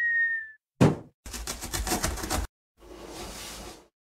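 Cartoon sound effects of an animated intro: a high whistle tone that slides slightly down and stops about half a second in, then a single thud, about a second of rapid rattling knocks, and then a soft whooshing hiss that fades out.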